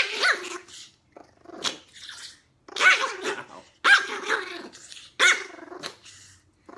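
Small chihuahua-type dog growling and yapping at the hand patting its head, in about five short growly bursts with brief pauses between.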